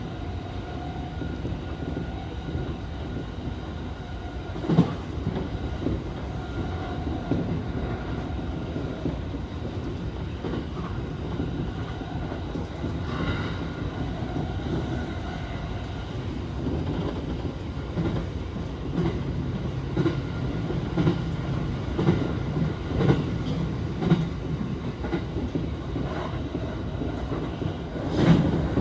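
Electric commuter train running on the rails, heard from inside the front car: a steady rumble with a faint whine that comes and goes. Wheels clack over rail joints now and then, and more often near the end.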